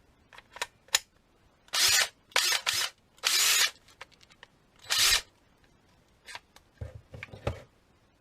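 Impact driver run in five short trigger bursts, each spinning up and stopping within about half a second, with handling clicks before and a few knocks and clicks near the end.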